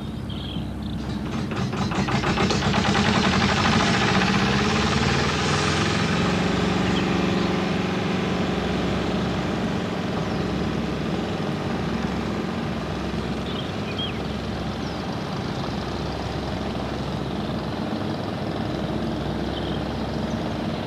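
Heavy engine of the gravel-pit machinery, swelling in about a second in with a fast rattling beat, then running steadily.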